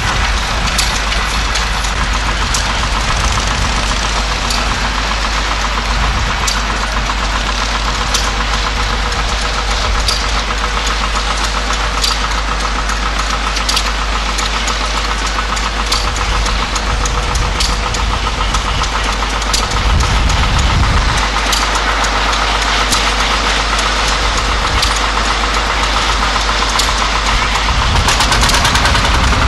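Vintage machinery running as it drives past: a steam traction engine, then a steam wagon, with a steady mechanical beat of about one knock a second. A tractor engine joins in near the end.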